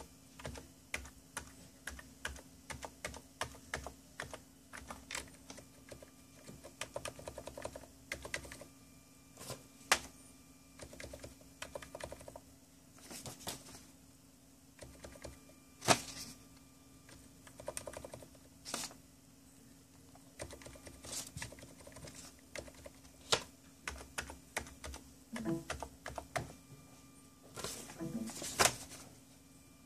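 Keys of a backlit computer keyboard being pressed in irregular clicks and short runs, under a faint steady low tone, with a thin higher tone that comes and goes.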